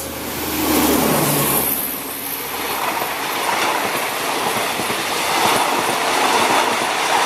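A passing train: an Alsthom diesel-electric locomotive, accelerating, hums low for the first second or two. Then the carriages clatter past with a steady clickety-clack of wheels over rail joints.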